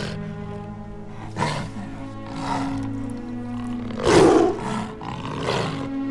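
Four roars over a film score of held tones, the loudest and longest about four seconds in.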